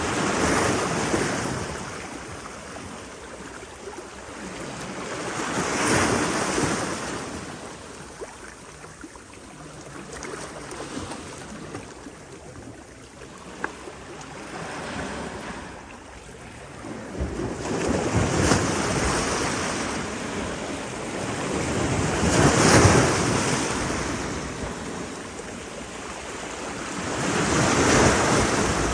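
Sea waves breaking and washing in, the surf swelling and fading every few seconds.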